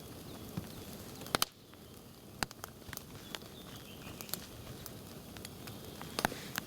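Campfire wood crackling: sharp, irregular pops over a steady low hiss. The loudest is a quick pair about a second and a half in.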